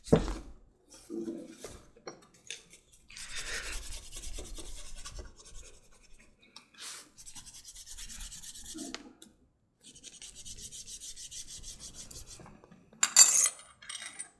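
Glass burnisher rubbed rapidly back and forth along the edge of a leather dog collar to smooth and burnish it, in several stretches of a couple of seconds each with short pauses, and a brief louder scrape near the end.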